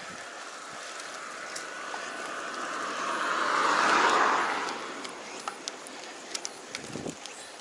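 A car passing by, its tyre and engine noise swelling to a peak about four seconds in and then falling away quickly. Small ticks sound throughout.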